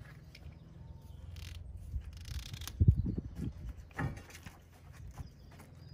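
Plastic garden-hose spray gun being fitted onto the hose's quick-release connector: a few clicks and knocks, the loudest about three seconds in and another about four seconds in, over a low steady rumble.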